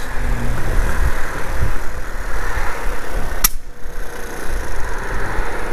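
Riding noise from a Peugeot Jetforce scooter under way: steady wind rush and engine running together. There is one sharp click about three and a half seconds in.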